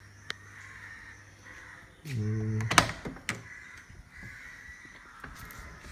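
Driver's door of a Hindustan Ambassador being opened: a short low creak, falling slightly in pitch, then two sharp clicks about half a second apart from the handle and latch.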